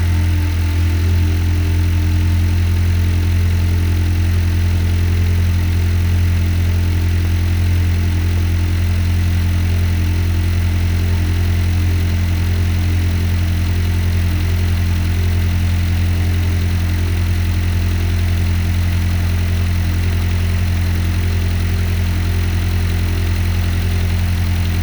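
Freshly rebuilt VW Golf DLB engine idling steadily on its first start after the rebuild, still cold.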